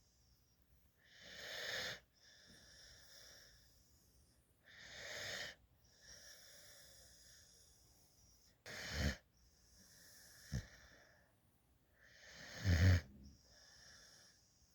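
A Black Mouth Cur and Labrador mix puppy snoring in deep sleep: a wheezy breath about every three to four seconds, with quieter breathing in between. The later snores carry a low rattle, and there is one short click near the end.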